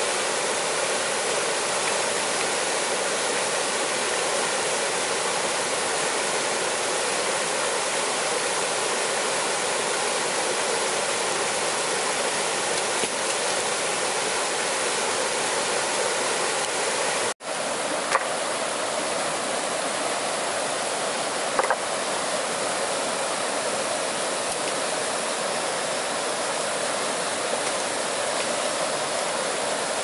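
Steady rush of flowing water, cut off for an instant a little past halfway and then resuming unchanged, with a couple of faint clicks after the break.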